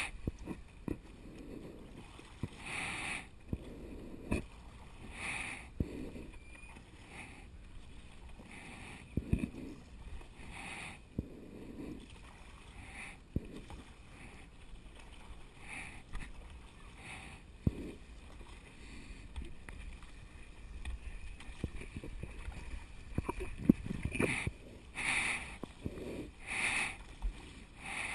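Stand-up paddle strokes in calm water: the paddle blade splashes in and drips out every second or two, with water lapping at the board and an occasional low thud.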